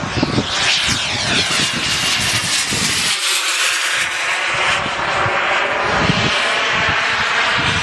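Turbine engines of a radio-controlled scale A-10 Warthog model jet making a pass: a steady high whine that sweeps down in pitch in the first few seconds as the model flies by. Wind buffets the microphone throughout.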